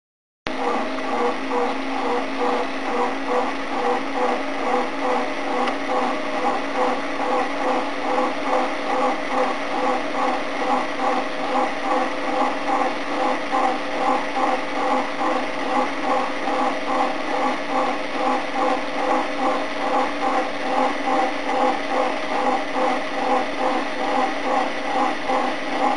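Hell Feldfernschreiber (Feld-Hell) teleprinter running at its nominal speed: the electric motor's steady hum under a regular mechanical clatter of gears and character drum, beating about two to three times a second.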